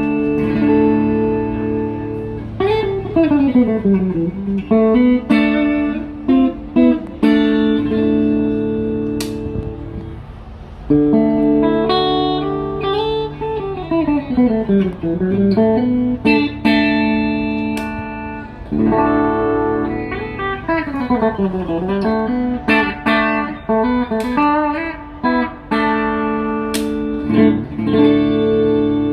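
PRS SE Hollowbody Standard guitar played through its piezo pickup. Ringing chords alternate with quick single-note runs that descend and then climb back up, in a phrase that repeats about every nine seconds.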